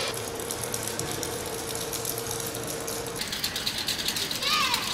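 Thin wooden sticks scraped and rattled rapidly against a ribbed wall, a fast dense run of clicks that gets louder after about three seconds. A short falling squeal sounds near the end.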